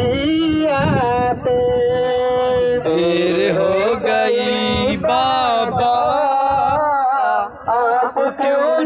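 A man singing a melodic chant loudly, with long held notes that bend up and down, over some musical accompaniment.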